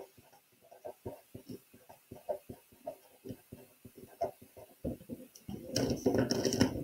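Pen writing on paper: a run of short, irregular scratchy strokes. Near the end the sheet of paper is slid and rustled.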